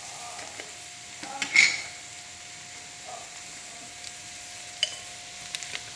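Sliced onions sizzling in oil in a metal kadai, with a wooden spatula stirring and scraping against the pan. The loudest scrape comes a little under two seconds in, and there is a short sharp click about five seconds in.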